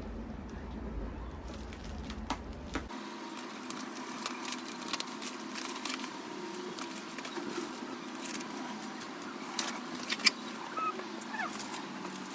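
Scattered light clicks and rustles of objects being handled, over a steady low hum. Near the end come a few short, high, gliding animal-like calls.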